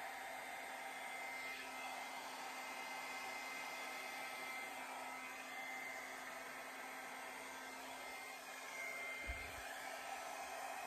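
Handheld hair dryer running steadily, a rush of air with a steady motor whine, blowing fluid acrylic paint across a canvas in a Dutch pour.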